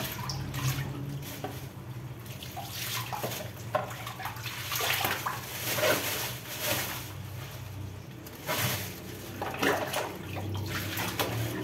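Water splashing and dripping in a concrete washing sink as zucchini are rinsed by hand and put into a plastic bag, with the bag rustling; the sound comes in short uneven bursts.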